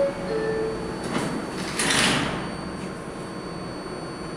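R142A subway car's door chime, two short steady notes, the second lower, followed by the sliding doors closing about two seconds in.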